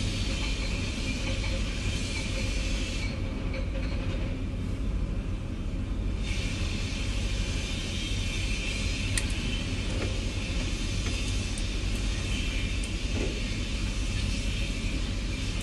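Steady low rumble of background noise with a hiss on top; the hiss drops away for about three seconds starting some three seconds in.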